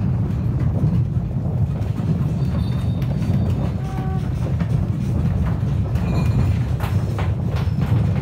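Deep steady rumble of a strong earthquake shaking a house, with a few rattles and knocks of loose objects near the end.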